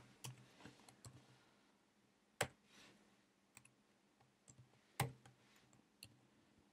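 A few faint, scattered clicks of computer keyboard keys, two of them louder and about two and a half seconds apart, over near silence.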